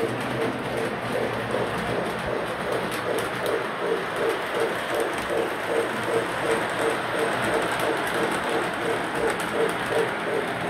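Model train running on the layout's track: a steady rumbling hum with a soft, even pulse repeating about three times a second.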